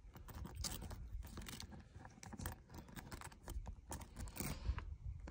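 A key being jiggled and twisted in a frozen truck camper door lock that won't turn: faint, irregular metallic clicks and scrapes of the key against the ice-packed lock.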